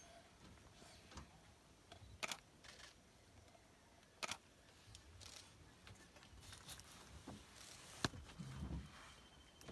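Near silence with camera handling noise: a few sharp clicks spaced a couple of seconds apart and a low thump near the end.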